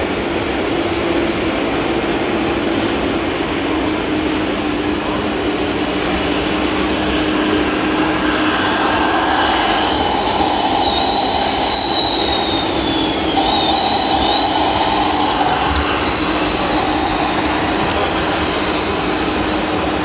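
Hydraulic pump of a radio-controlled model Komatsu PC490LC excavator whining as it digs. Its high pitch rises and falls slowly as the boom and bucket take load, over a steady hum and the constant din of a busy hall.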